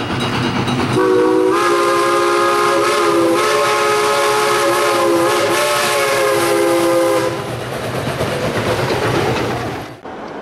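Train horn sounding a chord of several notes for about six seconds over the rumble and clatter of a moving train; the horn starts about a second in and stops a few seconds before the end, leaving the train running.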